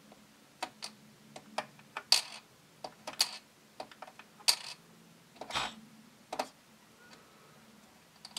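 Metal tweezers of an Operation board game clicking and tapping against the plastic board and the small piece in a cavity: a string of short, sharp clicks at irregular intervals.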